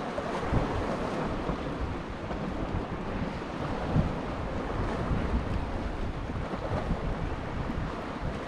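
Wind buffeting the microphone over sea waves washing against rocks, with a couple of brief louder gusts.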